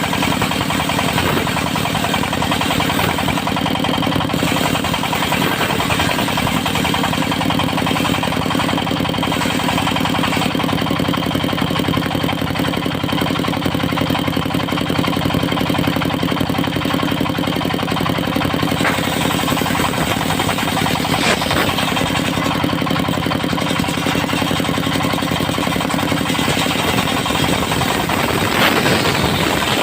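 Engine of a mobile circular sawmill running steadily at a constant speed, with a low, even hum.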